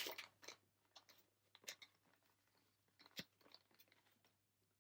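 Faint, scattered crinkling and crackling of a foil trading-card booster pack wrapper being handled and torn open, in a few short bursts.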